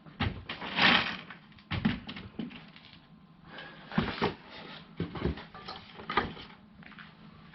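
Irregular knocks and clunks with a brief scraping rustle about a second in: parts being handled and set down during tool cabinet assembly.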